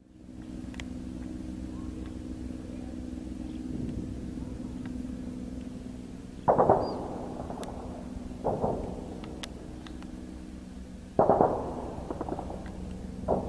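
Military jet aircraft droning overhead with a steady low hum. Four sudden loud blasts cut through it, the ones about six and eleven seconds in the loudest, each trailing off quickly.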